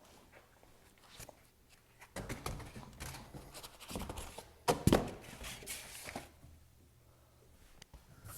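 Handling noise as a tankless water heater is stood upright: rustling and scraping with scattered knocks, and a couple of loud thunks a little under five seconds in.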